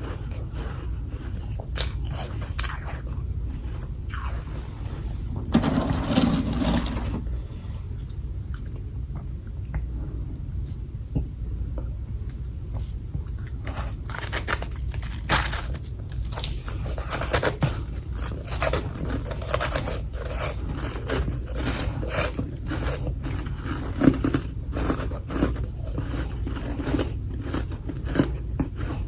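Close-up crunching and chewing of chunks of humidifier freezer frost. There is a dense burst of crunching about six seconds in, a quieter stretch, then steady crunching from about fourteen seconds on.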